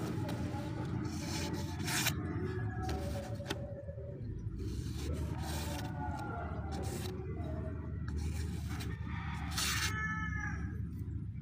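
A sheet of printer paper being handled and shaken, giving a few short crisp rustles over a steady low background rumble.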